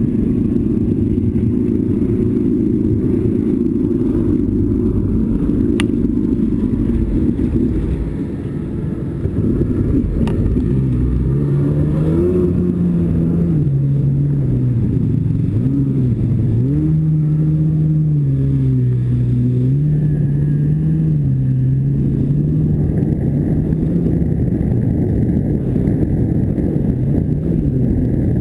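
Vintage stand-up jet ski's two-stroke engine running under way, with water rushing past. From about ten seconds in the engine note rises and falls repeatedly as the throttle is worked.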